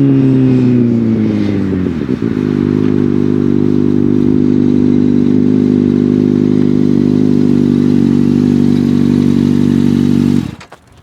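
2013 Kawasaki Ninja ZX-6R 636's inline-four through an M4 GP-style slip-on exhaust, its engine note falling for about two seconds as the revs drop, then idling steadily for about eight seconds. The engine sound cuts off suddenly near the end.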